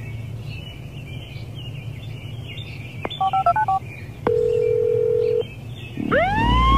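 Phone keypad tones: a quick run of about six short beeps, then a single steady tone for about a second as the call goes through. Near the end an ambulance siren starts, rising steeply in pitch.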